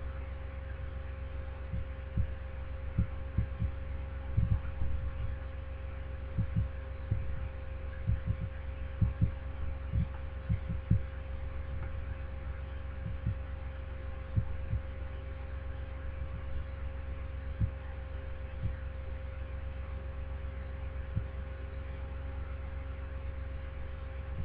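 A steady low hum with a faint constant tone, broken by irregular low thumps that come thickest in the first half and thin out later.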